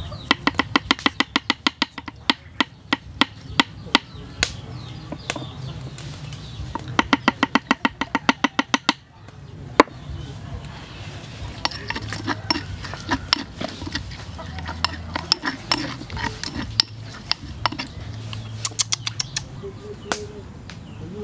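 A pestle pounding chili, garlic and aromatics in a wooden mortar, in fast even strokes of several a second: one run near the start and another about seven seconds in. After that come lighter, irregular knocks.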